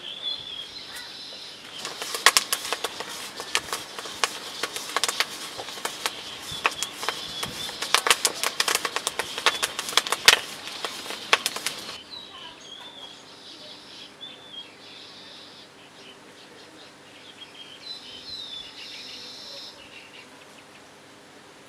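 Small birds chirping, with a dense run of rapid crackling and rustling clicks for about ten seconds that cuts off abruptly.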